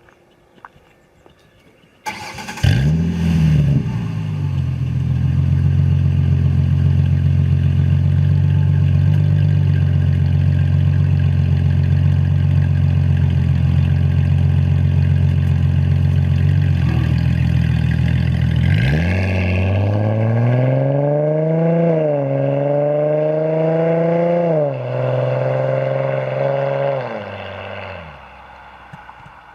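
A 2006 Ford Mustang's 4.0-litre V6 with an aftermarket Blue Oval Industries exhaust starts about two seconds in, flares and settles into a steady idle. From about 19 seconds in it pulls away, its pitch climbing and dropping back three times as it accelerates through the gears, then it drops to a quieter level near the end.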